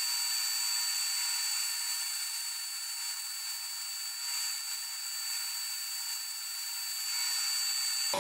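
Bandsaw resawing a small wooden board into a thin strip: the steady whirr of the blade cutting, with a constant high whine over it.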